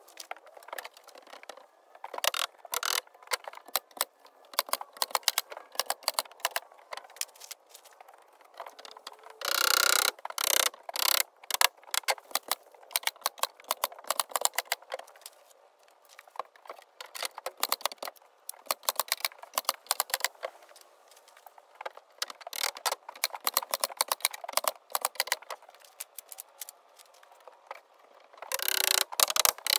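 A rapid, irregular clatter of clicks and knocks from wooden boards and tools being handled during work on a shed wall, with two brief denser bursts of noise, about ten seconds in and near the end.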